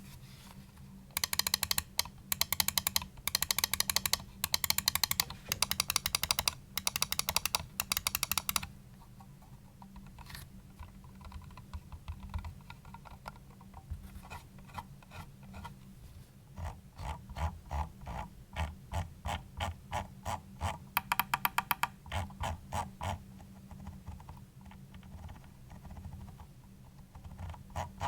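Roccat Burst Pro gaming mouse buttons clicking: fast runs of clicks for the first eight seconds or so, then fainter ticks, then slower separate clicks about two a second with one more quick run among them. A steady low hum runs underneath.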